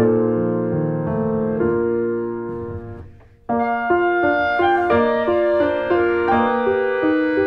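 Instrumental music led by a piano or keyboard, playing held notes that die away about three seconds in, then a new phrase of evenly paced notes picks up.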